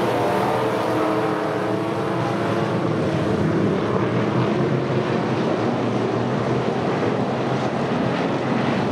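Several dirt-track street stock race cars' engines running together at racing speed: a steady, layered drone whose pitches shift a little as the cars circle the oval.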